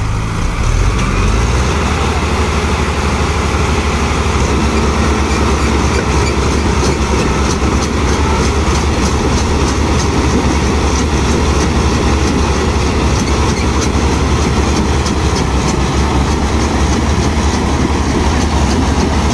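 Tractor diesel engines running hard under full load, a loud, steady, deep drone that swells as the throttle opens at the start and then holds.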